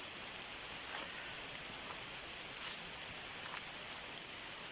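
Steady rain falling, an even hiss with a few faint taps of drops.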